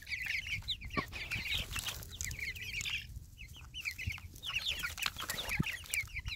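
A flock of young chickens peeping in quick, short, high calls while feeding, with a few faint taps of beaks on the plastic feeder.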